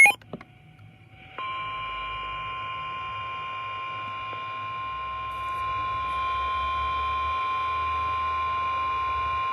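Emergency Alert System attention tone: one long, steady electronic tone that starts about a second and a half in. It announces a National Weather Service high wind warning.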